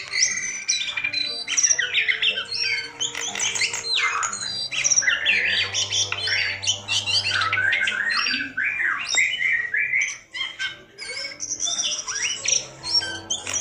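A caged jongkangan singing in full voice (gacor): a fast, varied, almost unbroken run of high chattering notes and quick slurs, the kind of song used as a lure to get a reluctant bird to start singing.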